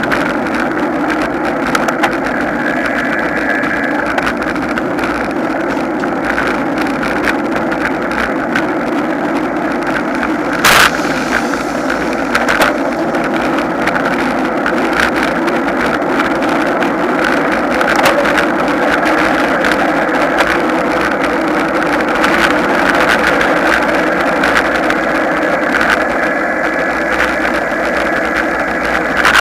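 Steady road and wind noise of a road bicycle riding at speed on asphalt in a group of cyclists, with a sharp knock about eleven seconds in.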